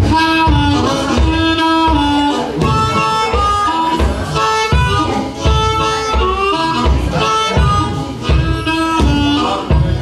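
Live blues band playing, led by an amplified harmonica blown into a bullet microphone, holding and bending notes over a steady low beat.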